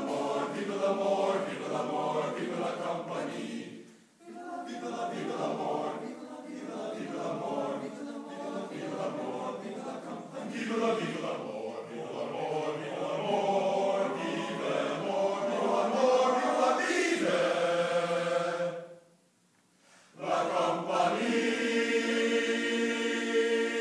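Men's choir singing, pausing briefly about four seconds in, then stopping altogether near the end before a final chord held for a few seconds.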